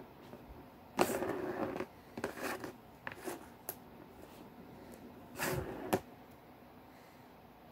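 A kitten batting the plastic ball around the track of a circular ball-track cat toy with a cardboard scratch pad. There are two bursts of rattling, scraping clatter, about a second in and again just before six seconds, with a few light knocks between them.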